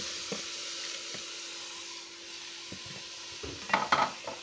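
Beef mince sizzling as it fries in hot ghee with onions in a steel pot. Just before the end a steel spoon scrapes and knocks against the pot a few times as stirring starts.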